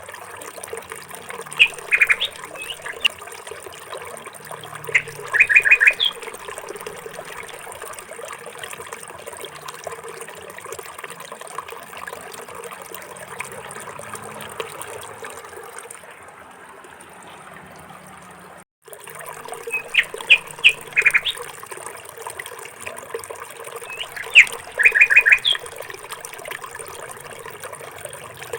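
Small bird chirping in short quick runs of three or four notes, over a steady trickle of running water. The sound drops out for a moment about two-thirds of the way through, and the same chirps come again.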